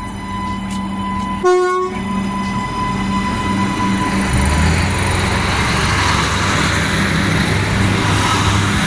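Adelaide 3100 class diesel railcars sound one short horn toot about one and a half seconds in. The engines then rise into a growing rumble with wheel noise as the train pulls away from the platform.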